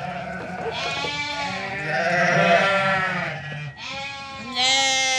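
Sheep and lambs bleating, several calls overlapping one another, with a loud, higher-pitched bleat near the end.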